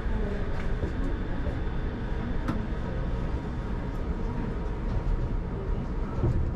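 Shonan Monorail's rubber-tyred suspended monorail car running and slowing to a stop at a station, a steady rumble with wavering motor tones.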